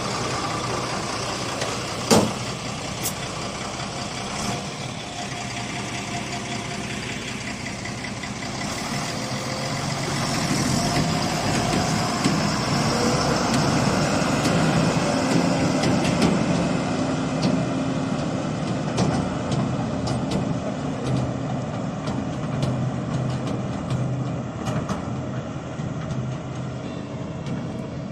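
Diesel engine of a dump truck running, with a single sharp bang about two seconds in. The engine grows louder as the truck pulls away and passes, then fades gradually as it drives off into the distance.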